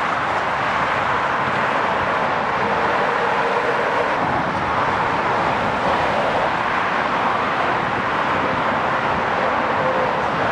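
Steady motorway traffic noise from heavy lorries and other vehicles passing at speed.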